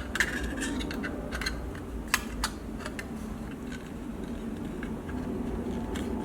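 Several light, sharp clicks and taps, as of small parts being handled, over a steady low hum.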